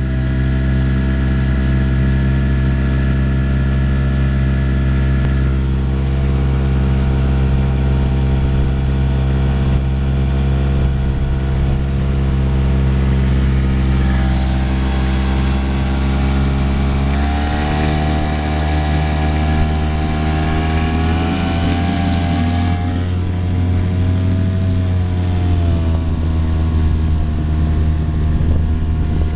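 Boat engine running steadily; a little past halfway its pitch rises as it speeds up, with a rush of noise, then eases slightly lower near the end.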